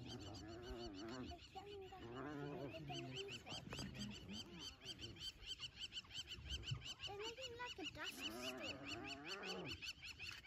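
Yelping, warbling calls from African wild dogs and spotted hyenas fighting over a kill. They come in several bouts that waver up and down in pitch, over a fast, high chirping repeated about six times a second.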